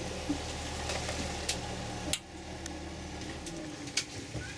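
Tour boat's motor idling with a steady low hum that cuts off sharply about two seconds in. There are a few light sharp clicks.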